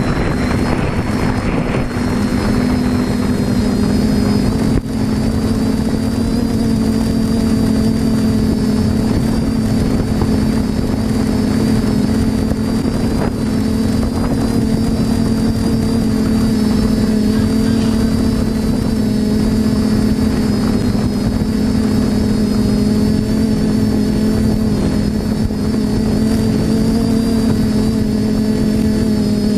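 Quadcopter drone's electric motors and propellers humming steadily in flight, one strong low hum with higher overtones that waver only slightly in pitch.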